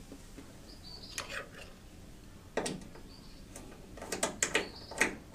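Metal clicks and clinks of hand tools and bolts being worked while a fender bolt is swapped for a stainless dress-up bolt: a couple of separate clinks, some ringing briefly, then a quicker run of clicks near the end.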